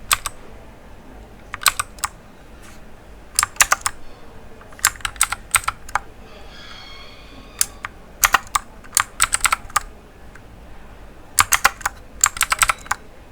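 Clicky blue mechanical key switches on an RK61 keyboard pressed in short irregular clusters of sharp clicks, with brief pauses between the clusters.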